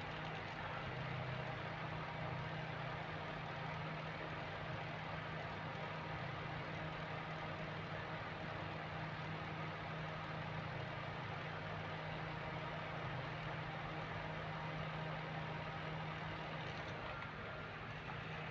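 A steady low hum from a running motor, with an even hiss above it and no change in level.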